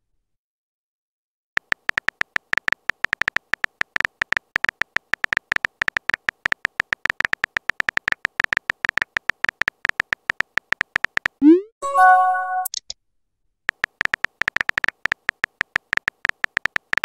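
Texting-app keyboard sound effect: a fast run of short beeping clicks as a message is typed letter by letter. About twelve seconds in, a quick rising swoop and chime marks the message being sent, then the typing clicks start again.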